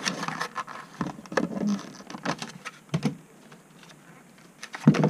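Stiff clear plastic clamshell packaging of a trading-card deck being pried apart and handled, making irregular crackles and clicks as the plastic flexes and the card insert slides out. A louder knock comes near the end.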